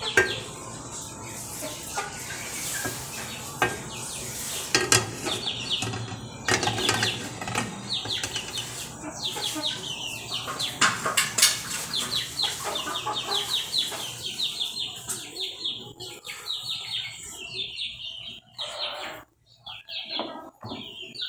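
Birds chirping in quick runs of short, falling notes, with a few sharp kitchen knocks of utensils against cookware.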